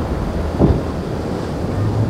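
Center-console boat running through rough inlet chop: a steady engine drone under the splash and hiss of spray and waves, with wind buffeting the microphone. A brief thump just over half a second in, and the low hum of the engines grows louder near the end.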